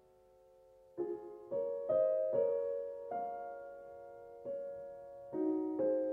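Slow piano music: after a brief lull, single notes and chords are struck about a second in and then every half second to a second, each ringing on and fading.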